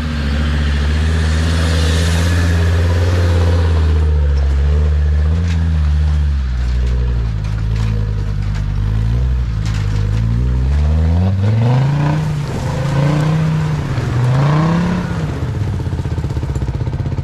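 Land Rover Series 1's swapped-in Td5 five-cylinder turbodiesel working under load as it climbs a muddy off-road track. It pulls steadily at first, then the revs fall and rise several times in the second half as the driver works the throttle.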